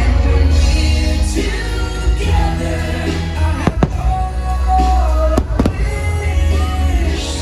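Fireworks show soundtrack: Christmas music with singing over a heavy bass. A few sharp firework bangs, in two quick pairs, cut through a little after halfway.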